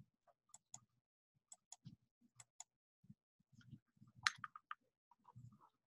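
Faint computer mouse clicks, repeated several times, many of them a quick double tick of button press and release.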